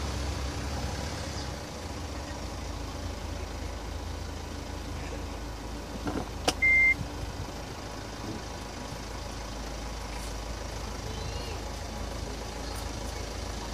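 Hyundai Tucson ix engine idling steadily with a low hum. About halfway through, a sharp click is followed by one short, high, loud beep.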